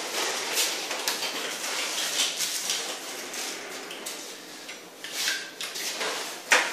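Scattered light metallic clicks and rattles of an aluminum track bar and wall plate bracket being handled and set in place, a little busier near the end.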